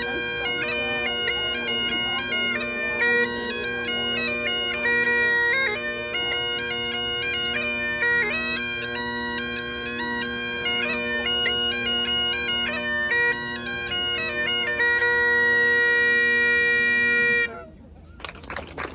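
Bagpipes playing a traditional tune, a steady drone under the chanter melody. It ends on a long held note and cuts off suddenly near the end.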